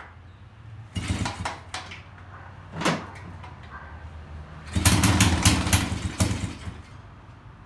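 1921 Cleveland single-cylinder two-stroke motorcycle engine being started after a long lay-up: it fires a few sputtering pops about a second in, one more pop near three seconds, then runs raggedly for about a second and a half before dying out. It smokes as it fires, which the owner takes for running a little rich.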